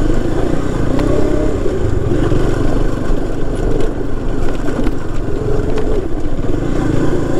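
KTM Duke 250's single-cylinder engine running as the motorcycle rides a rough dirt track, its revs rising and falling a little. A few light knocks come through.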